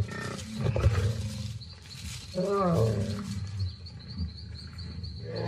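Lions growling and snarling while attacking African buffalo, mixed with buffalo bellowing. Loud calls come near the start and again about two and a half seconds in.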